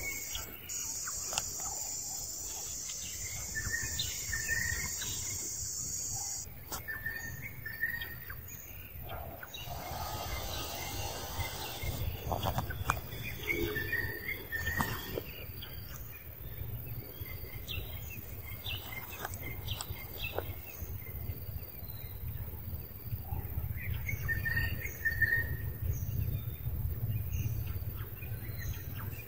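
Outdoor ambience: small birds chirping now and then over a steady high insect drone that cuts off about six seconds in, with a low rumble and a few light clicks underneath.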